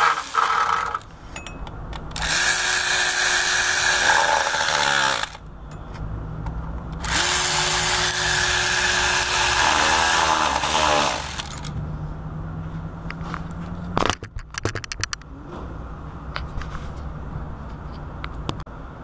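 Cordless power ratchet running in water pump bolts: a short burst at the start, then two long runs of about three and four seconds, each a steady whine that winds down at its end. A quick run of clicks follows about fourteen seconds in.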